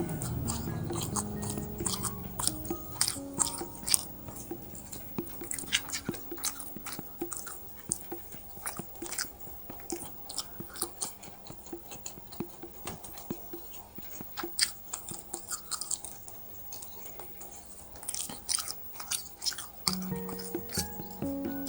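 A person chewing and biting food close to the microphone, with many short crisp crunches. Background music plays underneath, quieter in the middle and louder again near the end.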